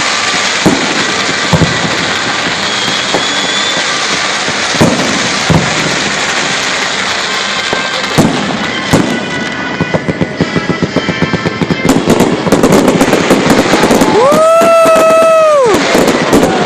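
Fireworks going off: scattered sharp booms over a steady rushing noise, then a dense, rapid crackling from about twelve seconds in. A held pitched tone, about a second and a half long, sounds near the end over the crackle.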